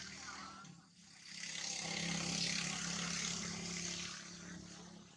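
Engine noise of a passing motor vehicle, a steady hum with a hissing rush that swells for a couple of seconds and then fades away.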